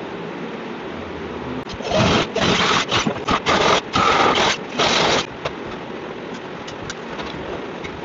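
Corded electric drill boring into a mahogany door for the lock's cylinder and spindle holes, run in several short bursts over about three and a half seconds, starting a little under two seconds in.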